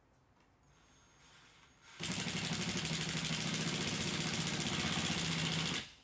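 Cordless drill driving a fastener through a metal track bracket into the wall. It starts about two seconds in, runs steadily at one speed for nearly four seconds, and stops suddenly near the end.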